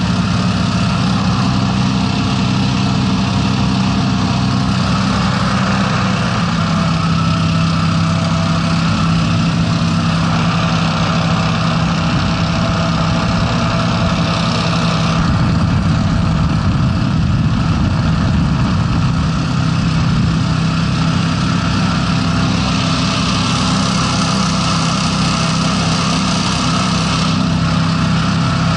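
The Honda 690 V-twin engines of a Breeze 420 hovercraft running steadily at cruising power, with the rush of the propeller fans and air. The engine note drops slightly about six seconds in.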